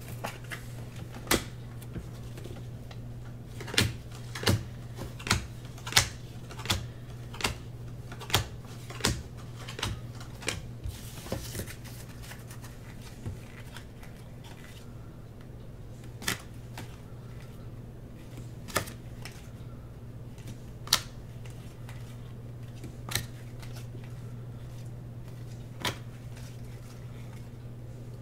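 Sharp clicks and taps of trading cards being handled and set down on a table: a quick run of them for several seconds with a brief rustle, then single taps every two or three seconds. A steady low hum runs underneath.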